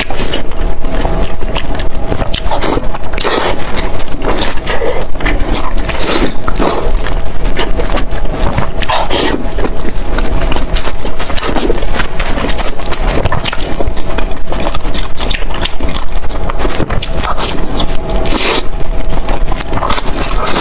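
Close-miked eating sounds: loud, continuous chewing and mouth noises, a dense run of wet clicks and scrapes.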